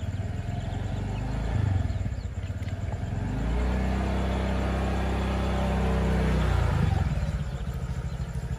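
An engine running, with a steady low pulsing throughout. It grows louder about three and a half seconds in and eases off again near the end.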